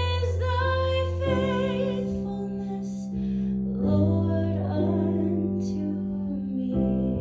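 Slow, gentle music: sustained keyboard chords that change every two to three seconds, with a voice singing a long held melody with vibrato in the first couple of seconds.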